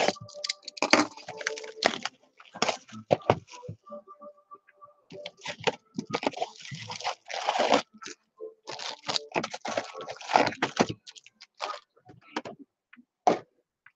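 Cardboard hobby box of Topps baseball cards being opened and its foil-wrapped packs pulled out and set down on a desk mat. The sound is an irregular run of crinkling, rustling and scraping, with a short lull partway through and sparser handling near the end.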